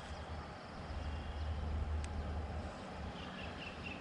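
Wind buffeting the action camera's microphone as a low rumble, strongest midway. There is a single sharp click about two seconds in, and near the end a rapid, regular high chirping begins, about four chirps a second.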